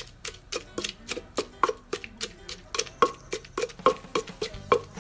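Wooden pestle pounding in a Thai clay mortar, about four steady knocks a second, crushing chillies, garlic and shrimp paste for a chilli dip.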